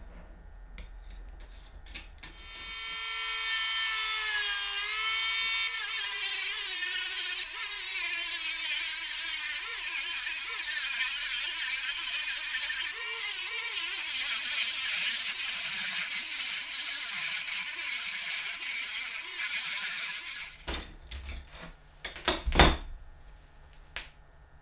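A few small clicks from a C-clamp being tightened, then a rotary tool starts with a high whine. Its cut-off wheel dips in pitch as it bites and grinds steadily through a metal angle bracket for about fifteen seconds, then stops. A few clicks and one sharp knock follow near the end.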